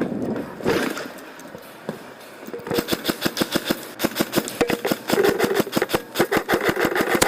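Airsoft electric guns firing a long string of rapid shots, about six a second, starting near three seconds in, over a steady motor whine. A shorter burst of shots comes about a second in.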